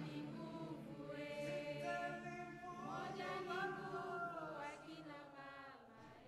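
Several voices singing softly together without instruments, in long held notes that slide gently between pitches; the singing fades away near the end.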